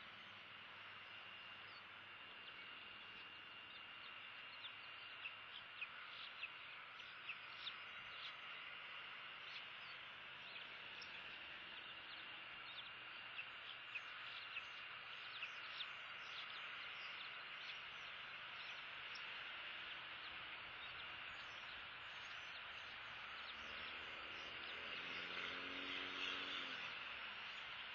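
Faint outdoor ambience: a steady drone of insects with a thin high tone, and a run of short, sharp high chirps for about ten seconds. A low hum swells and fades near the end.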